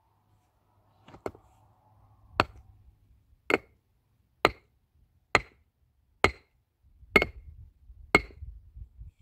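Eight sharp blows of a hand tool, evenly spaced about one a second, starting about a second in.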